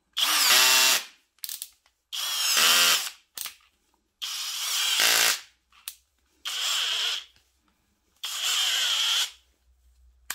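Parkside Performance PBSPA 12 A1 12 V brushless cordless drill running free in five short bursts of about a second each. Its whine rises and falls in pitch as the variable-speed trigger is squeezed and eased, with small clicks in some of the gaps.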